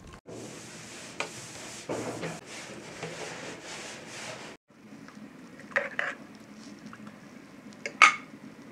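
A knife sawing through raw meat on a steel tray, a steady rasping; then, after a cut about four and a half seconds in, a metal spoon stirring in a pot with a few clinks against it, the loudest near the end.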